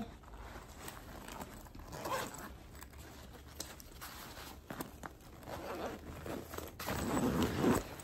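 Fabric travel backpack being handled, with light rustling and small clicks, then a zipper pulled open on one of its compartments near the end.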